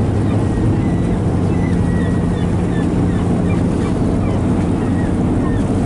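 Whale-watching boat's engine running with a steady low hum, with wind on the microphone.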